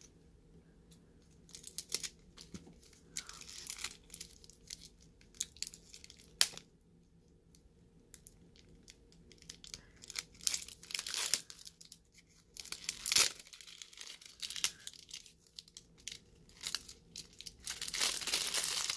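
Plastic wrapping being torn and peeled off a spool of leather lace: irregular crinkling and tearing in bursts, with quieter gaps between them.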